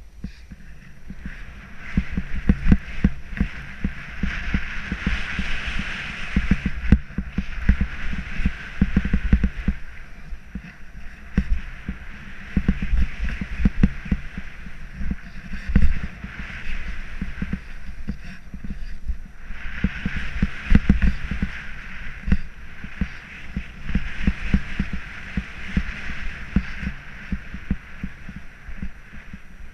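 Snowboard riding down a chopped-up snow slope: the board's base and edges hissing and scraping through the snow, louder in long swells through the turns, over frequent low thumps and rumble.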